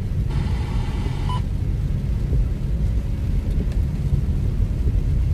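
Steady low rumble of a car driving on a wet road, heard inside the cabin. About a third of a second in, a second-long burst of radio static ends with a short beep as the car radio is switched to FM2.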